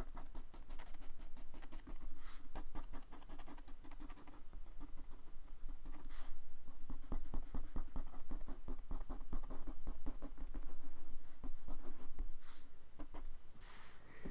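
Bamboo-handled ink brush working on paper: quick light tapping and scratching strokes, with three louder scrapes spread through.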